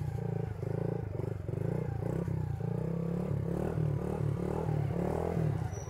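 Suzuki DR-Z70 pit bike's small single-cylinder four-stroke engine running at steady low revs while the bike is ridden.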